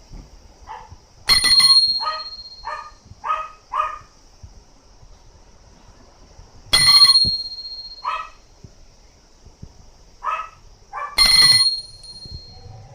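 A metal bell struck three times, about four to five seconds apart, each a sharp clang with a high ring that fades within about a second. A dog barks several times between the strikes.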